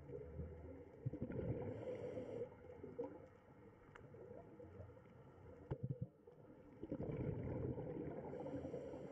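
Muffled underwater noise with gurgling and a few sharp clicks, swelling louder twice.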